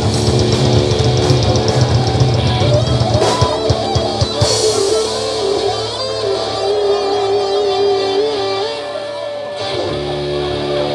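Rock band playing: distorted electric guitar over drums, with a long wavering note held through the middle.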